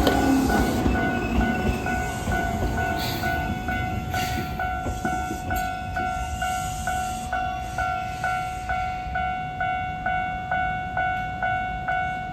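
Japanese level-crossing alarm ringing, an electronic chime repeating evenly about two to three times a second. Over the first couple of seconds it is joined by the rumble of an Enshū Railway electric train pulling in, its motor whine falling in pitch as it slows, then fading.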